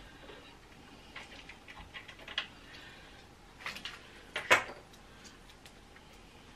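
Light clicks and taps of small sewing machine parts being handled, with one sharper click about four and a half seconds in.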